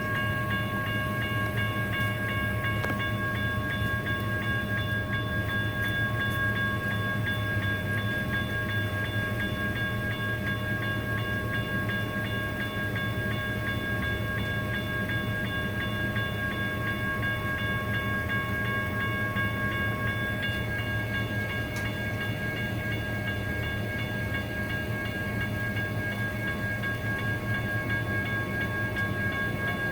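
Railroad crossing signals' General Signals Type 1 electronic bells ringing steadily as a set of high, ringing tones, over the low, steady hum of a CAF light rail train. About two-thirds of the way through, some of the bell tones drop out and the pattern changes.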